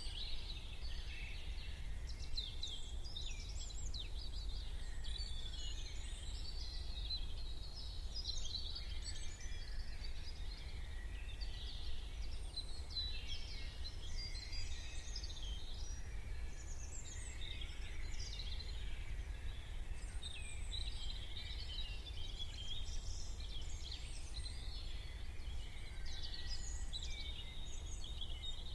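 Many small birds singing at once in a morning chorus, a dense tangle of overlapping chirps and short trills, over a steady low rumble.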